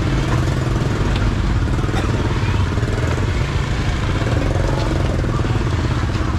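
Small motorbike engine running steadily at low revs, close by.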